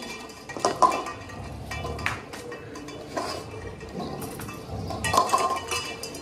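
Stainless steel dog bowls clinking and knocking as several dogs eat from them on a tiled floor: irregular metallic knocks, each with a short ring.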